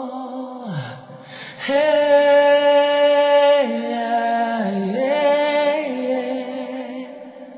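Wordless soundtrack singing: one voice holds long notes with a gentle vibrato, moving between a few pitches, and fades out near the end.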